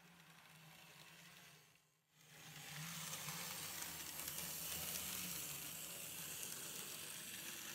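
N-scale DB class 212 model diesel locomotive running past close by, its small electric motor and wheels on the rails giving a steady whirring hiss with a low hum. The sound drops out briefly about two seconds in, then comes back louder as the engine passes.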